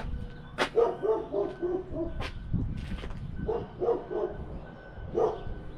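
A dog barking in short bursts: a quick run of yips about a second in, three more barks a little past halfway, and one near the end. Two sharp knocks stand out among them.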